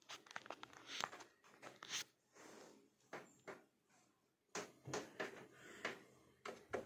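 Faint handling noise: scattered light clicks and rustles of hands working speaker wires at the terminals of an old car amplifier.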